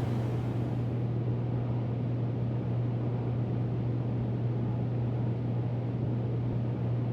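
Residential-area ambience dominated by a steady low mechanical hum, like an idling engine or a running machine, over a constant background noise; some higher hiss dies away in the first second.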